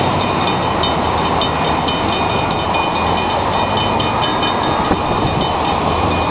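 Railroad crossing warning bell ringing in rapid, even strokes over a steady low rumble, the signal that a train is approaching the crossing.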